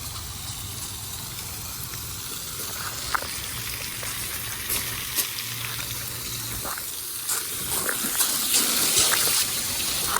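Rushing water gushing steadily, getting louder near the end, with a few short sharp knocks.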